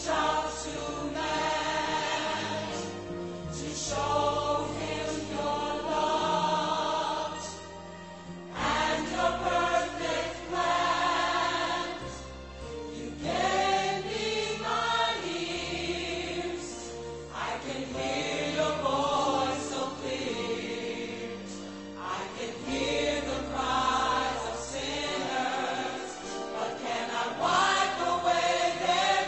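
Gospel choir singing in full harmony, phrase by phrase, over an instrumental accompaniment with a deep bass line.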